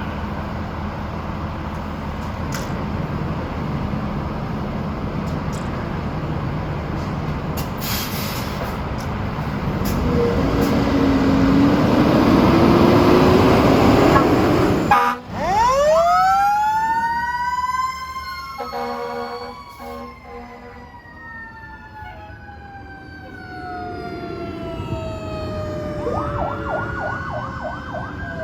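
Fire apparatus responding to a call: a heavy truck's engine and road noise build up loud for the first half, then a siren winds up sharply in pitch and slowly falls away. A brief horn blast sounds about two-thirds of the way in, and a fast warbling siren comes in near the end.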